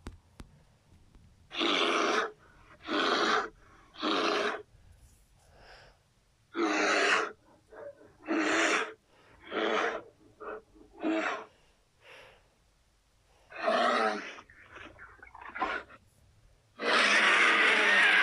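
A cartoon character's vocal sound effects: a string of about a dozen short, breathy vocal bursts, each under a second and separated by short pauses, with a longer one near the end.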